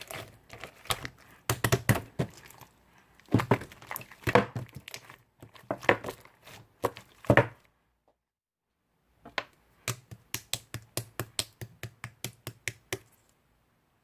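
Slime squished and pressed by hand, giving irregular crackling, popping clicks. After a short pause comes a quick, even run of pops, about five a second, before it stops.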